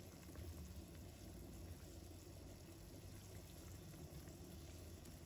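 Faint bubbling of a soy-sauce braising liquid simmering in a wok.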